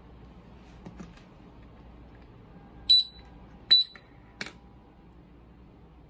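Two short high-pitched beeps from a retail phone anti-theft alarm host's buzzer, a little under a second apart, then a sharp click.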